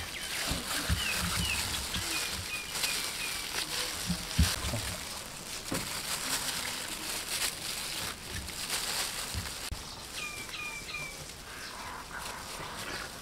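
Hands in thin plastic gloves pulling apart steamed chicken, a steady crinkling, rustling and soft tearing with small clicks. Small birds chirp in short quick series of falling notes about a second in and again about ten seconds in.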